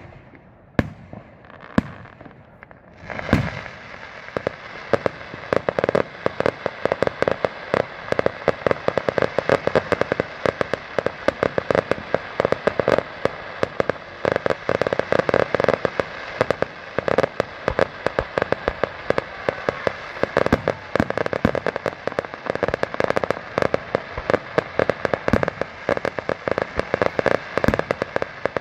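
Fireworks going off: a few separate sharp bangs, then from about three seconds in a dense, unbroken crackle of rapid cracks, many a second.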